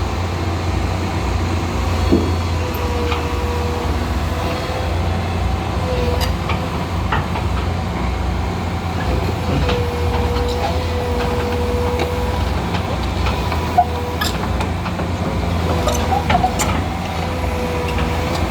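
Komatsu excavator's diesel engine running steadily, with a wavering whine over the low rumble and a few scattered clicks and knocks.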